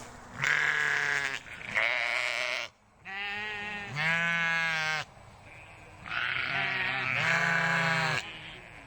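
Sheep bleating: about six long, wavering bleats in three pairs.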